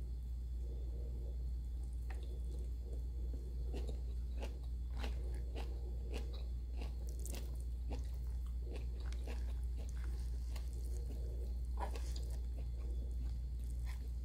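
A person eating with her hands close to the microphone: chewing with many short wet mouth clicks, thickest in the middle, over a steady low hum.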